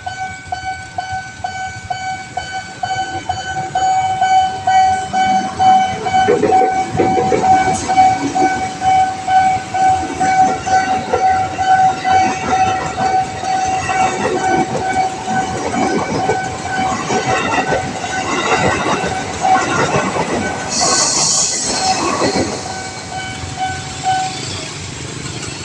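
Railway level-crossing warning alarm sounding a steady electronic tone while a train passes over the crossing with continuous clattering of wheels on the rails. Near the end there is a short burst of hiss, and then the alarm stops.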